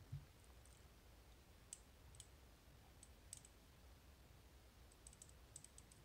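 Faint, scattered clicks of the magnetic rotors inside a Capitol Industries magnetic cam lock as a rare-earth magnet drags them round under tension, with a quicker run of clicks near the end as the first rotor reaches its true gate.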